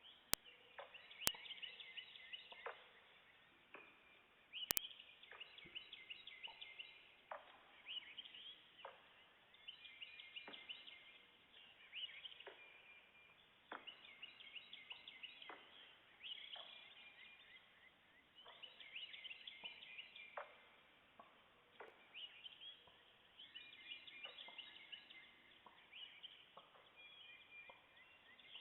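Faint forest chorus of birdsong and frog calls, coming in dense chirping bursts about every two seconds, with a repetitive knocking of unidentified, non-human origin running through it. A few sharp clicks sound in the first five seconds.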